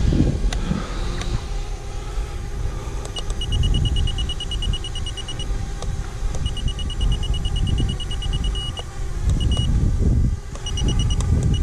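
Rapid runs of short, high electronic beeps, about eight a second, from a radio-control transmitter as its trim is stepped, starting about three seconds in, pausing, and coming back in shorter bursts near the end. Under them runs a low wind rumble on the microphone.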